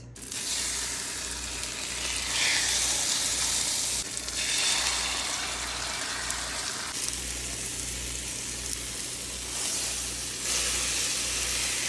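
Egg-coated eggplant sizzling steadily as it pan-fries in hot oil. The level shifts abruptly a few times.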